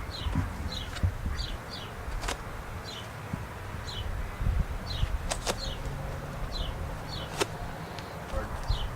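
A cardboard package being handled and opened: rustling, with a few sharp clicks and snaps. Short high falling chirps repeat irregularly, about two a second, in the background.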